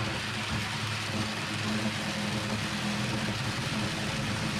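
A power saw cutting across the seam of a galvanized steel duct pipe, its motor running steadily with a constant hum under the metal-cutting noise.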